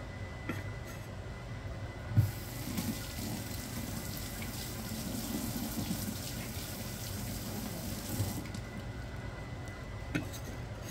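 Kitchen tap water running into a sink for about six seconds. It starts with a knock about two seconds in and stops near the end.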